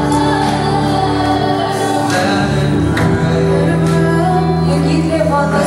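Live worship band playing a song: voices singing over acoustic guitar and a drum kit, with cymbal crashes about two and three seconds in.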